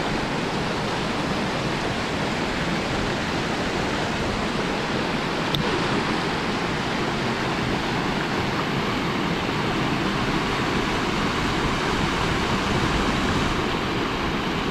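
Water rushing steadily over the rocks below a weir: a continuous whitewater noise close to the microphone.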